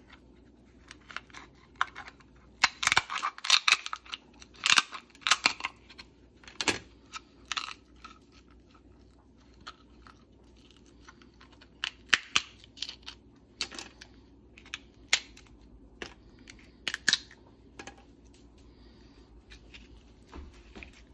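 Fork and fingers prying apart the shell of a cooked lobster claw and pulling out the meat: irregular sharp clicks, cracks and scrapes of shell and metal. The clicking is densest a few seconds in, then comes in scattered bursts.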